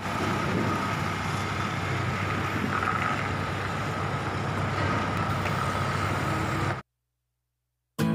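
Forklift engine running steadily while carrying a car on its forks, with a thin steady high tone over the engine noise. It cuts off abruptly near the end into silence, and music starts at the very end.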